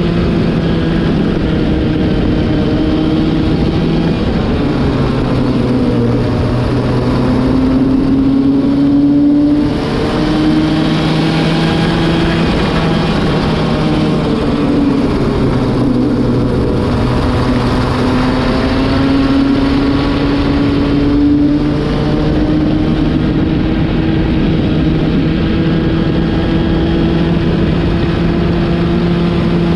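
Racing kart engine at speed on track, the new engine being run in. Its pitch climbs under acceleration, drops sharply when the throttle comes off about nine and a half seconds in and again about twenty-one seconds in, with a briefer dip around sixteen seconds, then climbs again.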